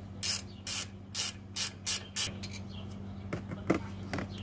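A ratcheting wrench clicks in six quick bursts, about two or three a second, as it backs out a brake caliper slide pin bolt. A few lighter clicks follow near the end.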